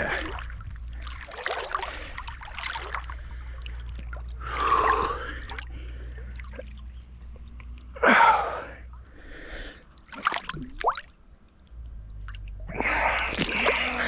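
A swimmer's breathing in the water: several loud breaths and gasps, the loudest about eight seconds in, with small splashes and trickling water.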